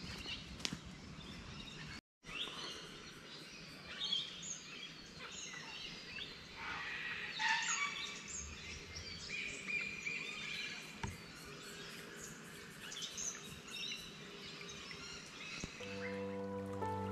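Footsteps on a dirt track for the first two seconds, then, after a brief dropout, many birds calling and chirping in the bush over a faint background hiss. Soft music with held tones comes in near the end.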